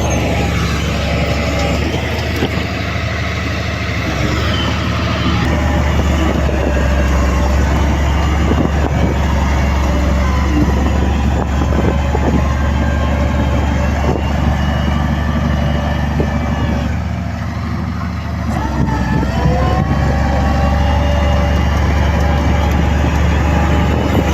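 Heavy diesel engine of earthmoving machinery running steadily and loudly; it eases off briefly about three quarters of the way in, then revs up again with a rising pitch.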